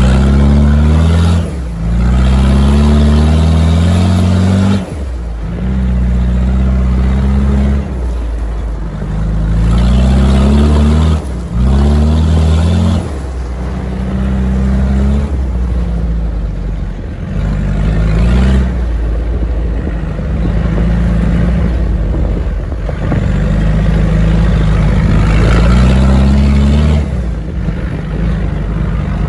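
Land Rover Discovery's 300Tdi turbo-diesel engine pulling hard, heard from outside the moving vehicle. The engine note climbs in pitch, then breaks and drops at each gear change, again and again.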